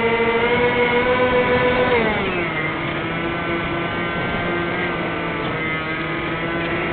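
Twin electric motors and propellers of a Firebird Stratos foam RC plane, heard from its onboard camera, humming steadily. About two seconds in the pitch drops and holds lower as the throttle is eased back, over a rush of air noise.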